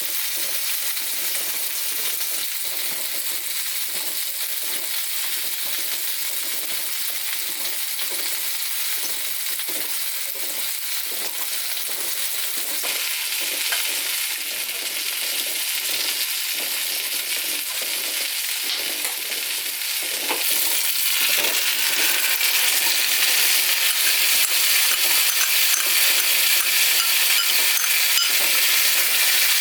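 Food sizzling in a hot frying pan, a steady hiss that grows louder about 13 seconds in and again about 20 seconds in.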